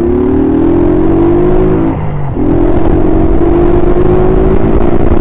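Honda CG Titan 125's single-cylinder four-stroke engine accelerating as the motorcycle pulls away, its pitch rising. About two seconds in there is a short dip at an upshift, and then it runs on steadily at a higher pitch.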